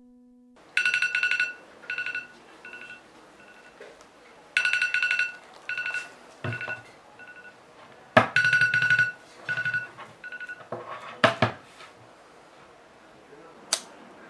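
Electronic phone ring tone, a fast trilling beep that sounds three times, each ring trailing off in fading echoes. A couple of sharp knocks follow as a hand fumbles on the bedside table, and a lighter clicks near the end.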